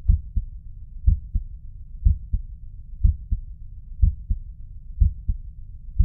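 Human heart sounds heard through a stethoscope: the first and second heart sounds come as lub-dub pairs about once a second, six beats in all. The second sound of each pair is the higher-pitched one.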